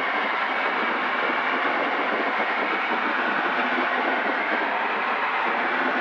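Steady cabin noise of a Zenith CH750 Cruzer light aircraft in level flight: engine and airflow blend into an even, unchanging drone.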